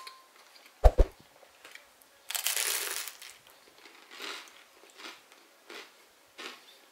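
A short thump about a second in, then a crunchy bite into crisp toasted bread lasting about a second, followed by regular crunching chews, a little more than one a second.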